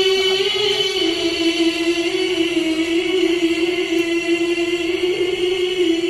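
A qari reciting the Quran in a melodious tilawah style, holding one long ornamented note that dips slightly in pitch about a second in.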